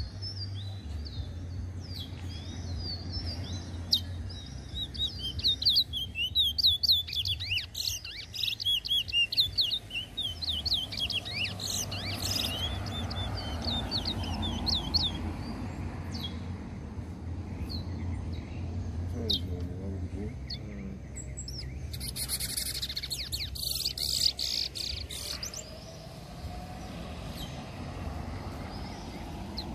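Caged towa-towa (large-billed seed finch) singing its rapid, chirping song in dense phrases, busiest in the first half, over a steady low hum. About 22 seconds in there is a brief burst of hiss.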